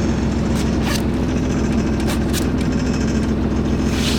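A sailboat's engine running steadily at a low, even speed, with a few light knocks over it.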